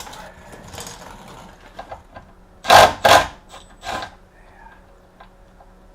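Tool work on splash-guard fasteners under a car: two loud rasping bursts close together about three seconds in, then a shorter third one, over faint mechanical clicking.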